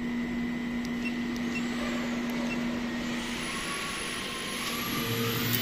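CNC plasma cutting machine humming steadily with a constant low tone, with no cutting yet.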